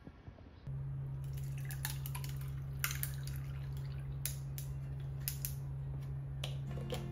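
Coffee poured from a paper carton into a glass packed with ice cubes: liquid running and dripping, with sharp clinks and cracks from the ice. A steady low hum comes in under it a little under a second in.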